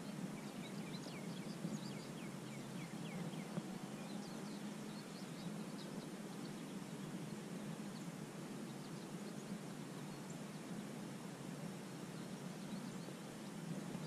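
Birds chirping in quick runs of short notes, thickest in the first few seconds and scattered through the middle, over a steady low outdoor background hum.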